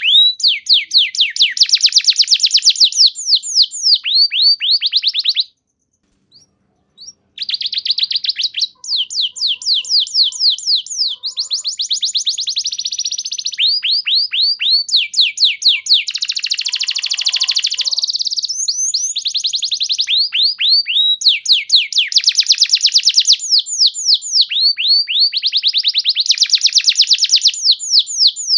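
Domestic canary singing: fast, rolling trills of rapidly repeated falling notes, changing from one trill to the next, with a break of about two seconds roughly six seconds in.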